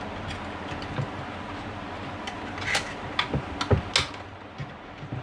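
Wires and plastic switch-box fittings being handled, giving light clicks and taps, with a cluster of sharper clicks and knocks about three to four seconds in, over a steady low hum.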